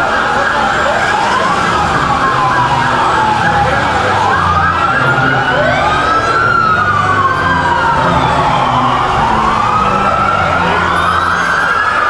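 Several emergency-vehicle sirens wailing at once, their rising and falling pitches overlapping one another, over a low steady rumble.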